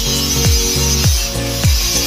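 Electronic background music with a steady beat of deep bass drums that drop in pitch.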